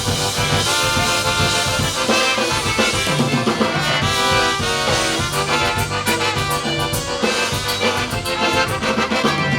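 Live polka band playing an instrumental break of a Polish polka: accordion leading, with brass and a steady drum beat.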